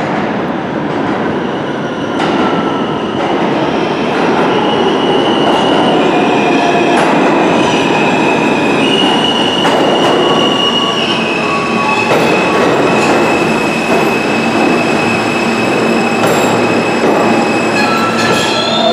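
Alstom R160 subway train pulling into an underground station and slowing, a loud steady rumble of wheels on rails. From about five seconds in, high squealing tones hold and shift in pitch as it brakes.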